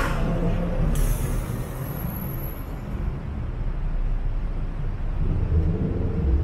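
City bus running close by in heavy road traffic, giving a sharp hiss of air at the start and another about a second in, typical of its air brakes. Low traffic rumble underneath, swelling again near the end.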